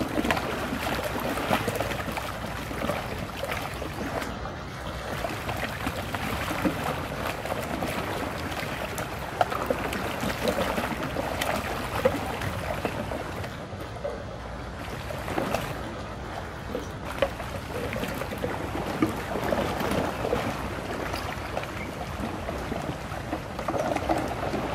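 Muddy floodwater swirling and churning in a whirlpool, a steady rushing of water with small splashes.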